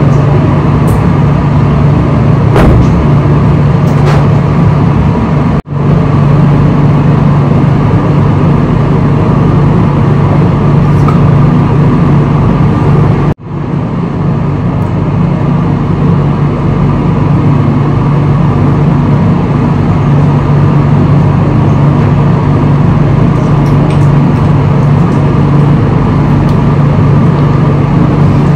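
Steady noise of a moving road vehicle, with a constant low hum, cutting out for an instant twice.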